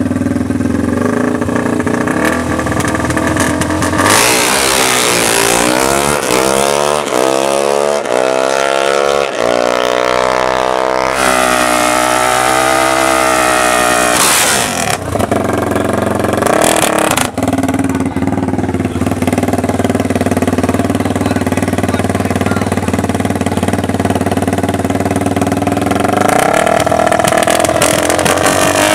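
KTM 450 dirt bike's single-cylinder four-stroke engine at the starting line of a drag strip, idling and then revved repeatedly, its pitch sweeping up and down for several seconds. After a sudden break it settles into a steady idle, then revs up again near the end.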